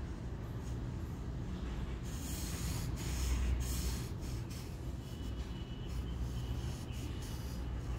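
Felt-tip marker scratching back and forth on paper as an area is coloured in: short repeated hissy strokes from about two seconds in, over a steady low rumble.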